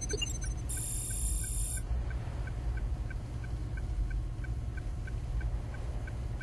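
Computer readout sound effect: a steady train of short, high electronic beeps, about three a second, over a low steady rumble. About a second in, a brief high electronic hiss sounds as the display comes up.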